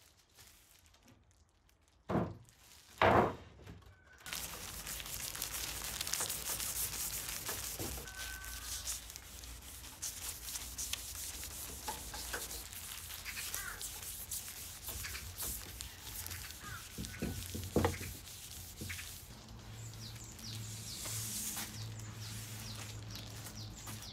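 Two loud thuds, then a cloth pad rubbing Ott stain into a wooden board: a steady, scratchy rubbing made of many short strokes against the grain.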